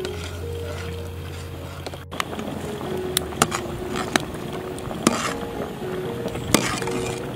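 Metal ladle stirring coconut milk in a pot, with several sharp clinks of the ladle against the pot, over background music.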